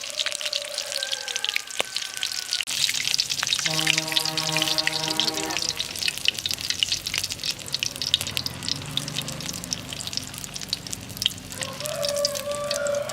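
Battered loach frying in hot oil, a steady dense crackle and sizzle. A few brief pitched calls sound in the background near the start, in the middle and near the end.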